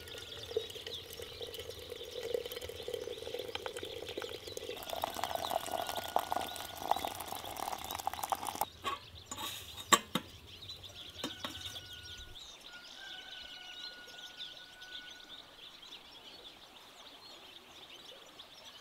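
Water running from a samovar's tap into a glass teapot, its pitch rising as the pot fills. About ten seconds in come a few sharp metallic clinks as the teapot is set on top of the samovar. After that there are faint bird calls.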